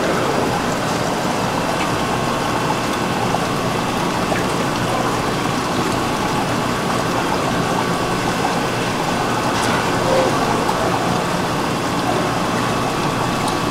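Steady, even background noise of a busy fish market, with a few faint clicks.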